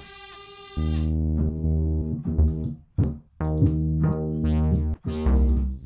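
Korg ARP Odyssey software synthesizer being played: a high held note fades, then from about a second in a deep synth bass plays a run of notes with brief gaps.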